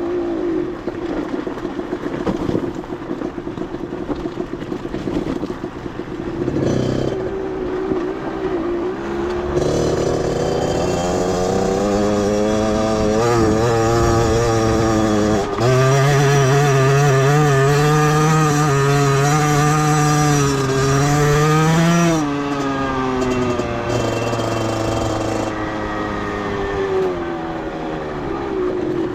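Beta 50cc two-stroke motorcycle engine running at low revs, then accelerating with rising pitch from about a third of the way in. The pitch drops abruptly about halfway, as at a gear change, and holds high until the rider eases off about three quarters through and the engine slows back down.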